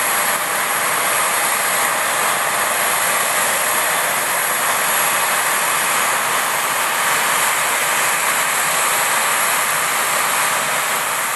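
Boeing 737-800's CFM56 jet engines running at idle: a steady high whine over a constant rushing noise as the airliner is towed by a pushback tug.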